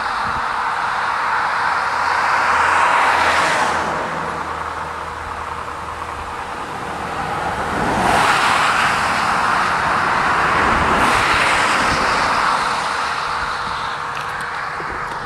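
Road traffic: cars passing by one after another, the tyre and engine noise swelling and fading, loudest about three seconds in and again from about eight to twelve seconds in.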